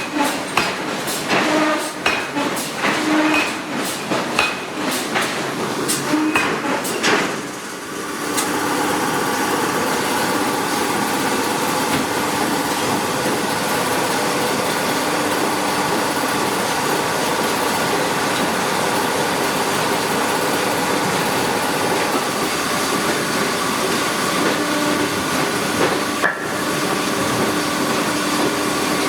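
Hydraulic forging hammer striking hot steel in quick repeated blows, about two or three a second. After about eight seconds the blows stop and a steady machinery noise with a constant hum carries on.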